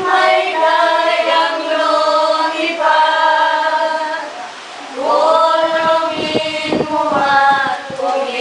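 Four elderly women singing together unaccompanied, in long held notes, with a short break for breath about four and a half seconds in.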